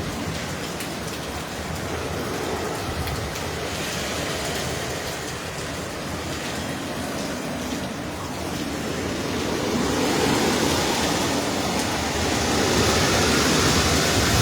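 Hurricane wind and heavy rain, a steady rushing noise that grows louder about ten seconds in.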